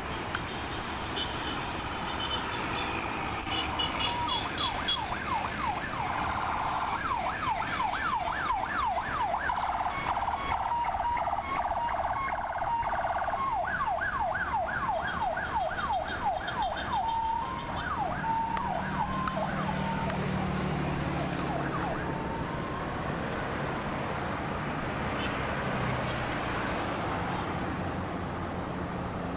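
Ambulance siren in a fast yelp: quick, repeated rising sweeps through the middle, then a few steadier tones before it fades away near the end. A steady noise of traffic and a low hum lie underneath.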